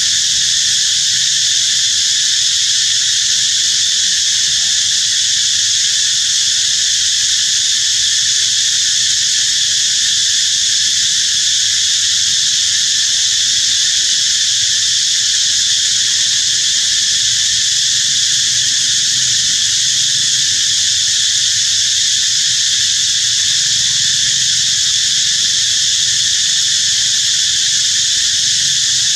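Loud, steady, high-pitched drone of an insect chorus, unbroken and unchanging throughout.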